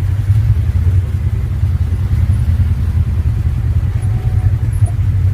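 Engine of an off-road vehicle running steadily under way, a loud, even low drone.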